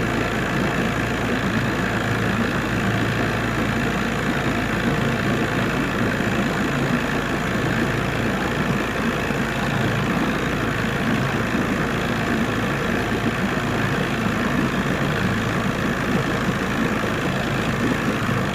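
Boat engine running steadily with an even, unbroken drone and low hum.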